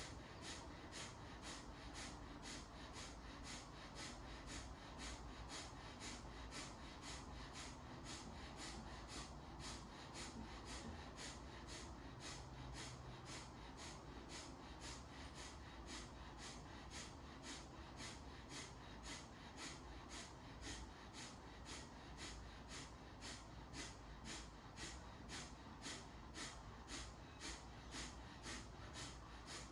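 Kapalabhati (breath of fire) pranayama: short, forceful exhalations through the nose, pumped by the abdomen, in a steady even rhythm of about two puffs a second.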